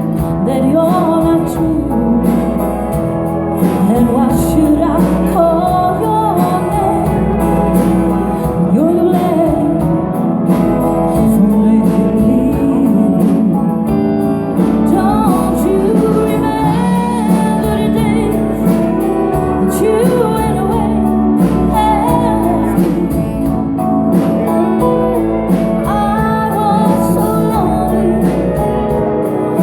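Live band playing a song with a singer, music and vocals going on without a break.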